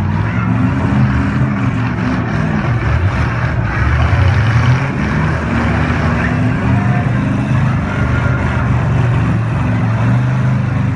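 Several demolition derby car engines running and revving at once, their pitches rising and falling over a loud, steady din.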